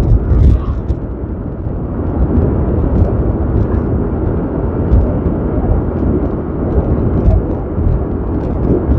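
Wind rushing and buffeting over the microphone of a Yamaha Aerox scooter cruising steadily at about 47 km/h, with the scooter's engine and tyre noise running underneath.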